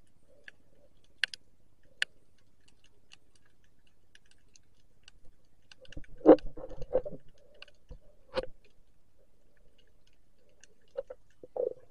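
Underwater sound picked up by a submerged camera: scattered sharp clicks and crackles, then a cluster of dull knocks with low rumbling water movement about six seconds in, the loudest part, and single knocks a little after eight seconds and near the end.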